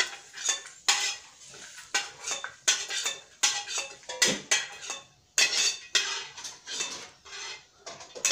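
A spoon scraping and clinking against a non-stick frying pan and a steel plate in irregular strokes as fried cashews and raisins are scooped out.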